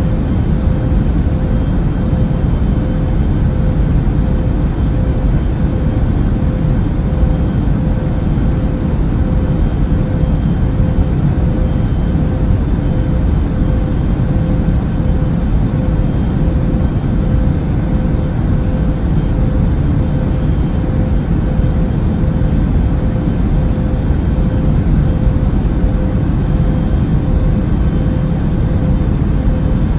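Airbus A380 cabin noise in flight: a steady, unchanging low rumble and hiss of engines and airflow, with a constant hum running through it.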